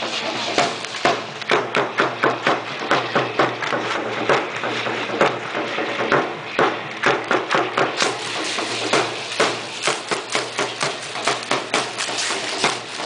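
Percussion for a matachines dance: a steady, fast beat of sharp, wooden-sounding strikes, about three a second.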